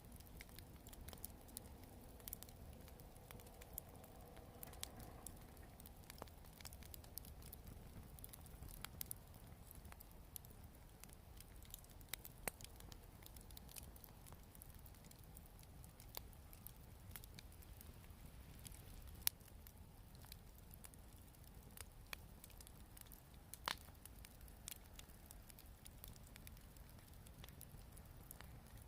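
Wood bonfire crackling softly, with scattered sharp pops and snaps, the loudest about 19 and 24 seconds in, over a faint low rumble.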